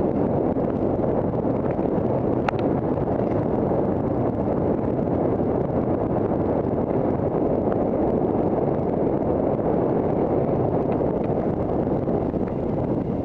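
Wind buffeting the microphone of a camera on a mountain bike descending a dirt singletrack, a steady rushing blended with the rumble of the tyres over the trail. A few sharp clicks and rattles come through, the clearest about two and a half seconds in.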